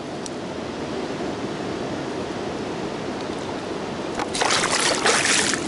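Steady rushing of a shallow river close to the microphone, then loud, ragged splashing in the water from about four seconds in.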